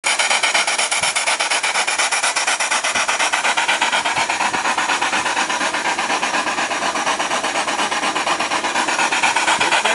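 Steam engine fed by a vertical steam boiler, running steadily with a fast, even hissing chuff of exhaust steam, about five beats a second.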